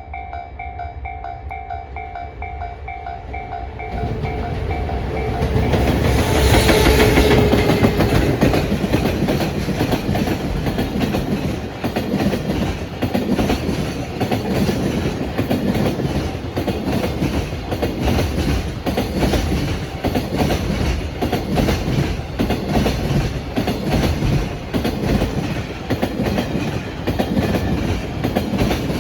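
A Japanese level-crossing alarm rings with a repeating electronic ding. About four seconds in, a JR Freight EF210 electric locomotive arrives and passes, loudest around six to eight seconds in. After it, a long string of Koki container wagons rolls by with steady wheel clatter over the rail joints.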